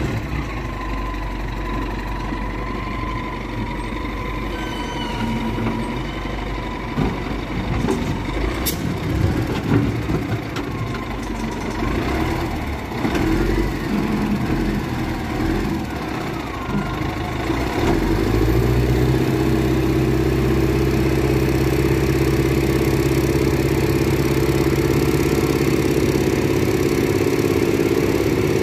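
Wheel loader's diesel engine running while the bucket digs into dirt, with irregular scraping and knocks. About 18 seconds in, the engine picks up to a steady, louder drone as the full bucket is raised.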